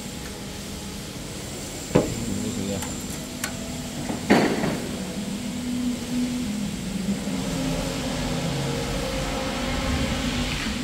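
Steady hum of running factory machinery, with two sharp metal clacks about two and four seconds in, the second ringing on briefly, from a steel tape measure being handled on the cutting machine's table.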